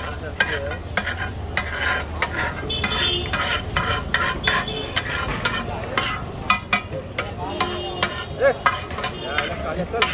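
Metal spatula scraping and clacking on a large flat tawa griddle in quick, irregular strokes as rice and red masala are stirred and fried, with a sizzle underneath.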